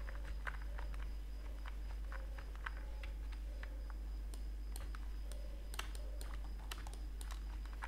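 Scattered, irregular clicks of a computer keyboard and mouse, fairly faint, over a steady low electrical hum.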